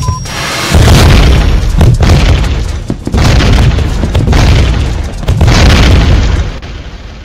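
Countdown timer's final short beep, then a sound-effect bomb explosion: a deep rumbling blast that swells about five times over some five seconds and dies away near the end.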